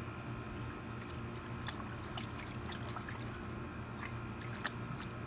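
Shallow water in a plastic kiddie pool splashing and trickling as a dog paws and steps through it, with small scattered splashes over a steady low hum.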